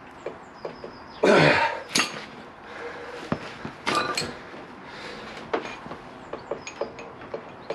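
Metal clinks and knocks from a breaker bar and 46 mm socket being heaved on the seized rear hub nut of a Honda VFR800, with a loud grunt of effort about a second in. Sharp clicks follow about two seconds in and again near four seconds.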